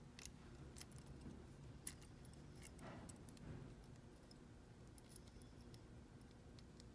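Faint, scattered small metallic clicks and ticks of a bolt being threaded by hand into a T-nut on a metal angle bracket, over near-silent room hum.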